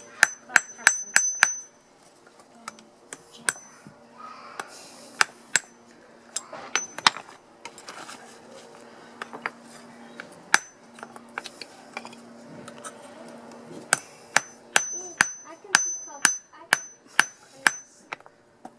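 Ball-peen hammer striking hot steel on a steel-block anvil while forging an arrowhead: ringing metal blows, a quick run of strikes at the start, scattered single blows in the middle, and another quick run near the end.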